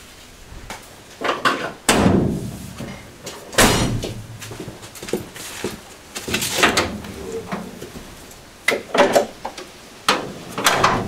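About five separate clunks and knocks as the steel bonnet of an Opel Kadett D is unlatched and lifted open.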